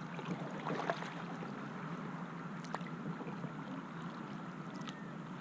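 Water lapping and trickling around a kayak as it is paddled, with a few small drips and splashes.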